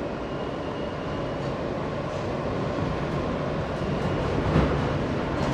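R160 subway car running along the track, heard from inside the car as a steady rumble. A single sharp clack from the wheels comes about four and a half seconds in.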